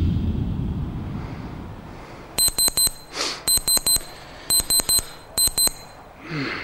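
Electronic alarm beeping: short high-pitched beeps in quick groups of four, starting about two and a half seconds in and repeating four times, going off beside a sleeper. Music fades out at the start.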